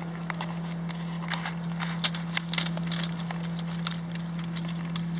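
Light, irregular clicks and crackles from handling on the rock ballast beside the rail and the stiff, train-flattened denim, over a steady low hum.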